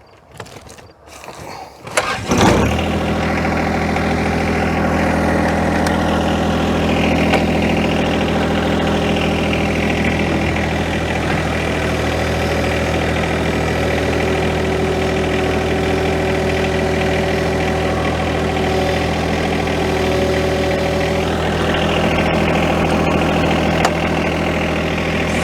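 John Deere 1025R compact tractor's three-cylinder diesel engine starting about two seconds in, then idling steadily.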